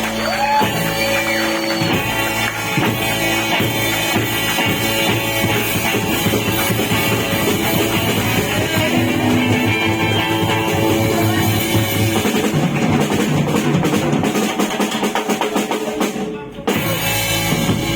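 Rock band playing with drum kit and guitar, without vocals, with a brief break in the music near the end before it comes back in.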